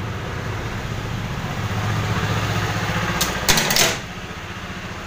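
A steady low machine hum with a fast flutter, which drops away at a brief loud clatter about three and a half seconds in; a quieter hum continues after it.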